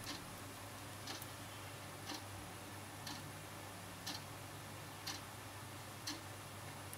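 A clock ticking faintly and evenly, one tick a second, over a low steady room hum.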